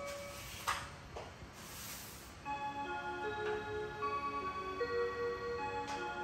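Seiko RE501B musical wall clock: a couple of clicks from its mechanism as the dial ornaments turn, then from about two and a half seconds in the clock's chime melody plays, one ringing note after another.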